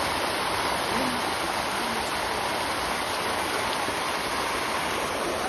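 A mass of fish thrashing and splashing at a pond's surface in a feeding frenzy: a steady, continuous rushing churn of water.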